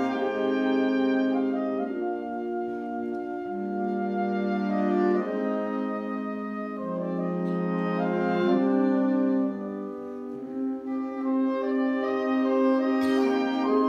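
Fanfare band of saxophones, brass and percussion playing live: slow, sustained chords that shift every second or two. A sudden crash comes near the end.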